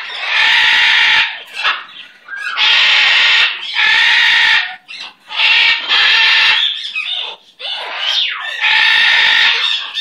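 Blue-fronted Amazon parrot squawking loudly: about five long, harsh calls of roughly a second each, with shorter gliding calls in between.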